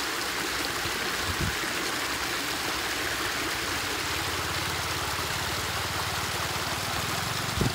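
Muddy floodwater rushing over a concrete edge: a steady rush of water, with a low rumble joining about halfway through and a short thump near the end.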